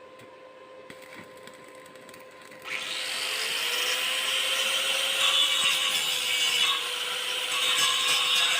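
Stick (arc) welding: a loud, steady crackling hiss that starts suddenly about two and a half seconds in, over a faint steady hum.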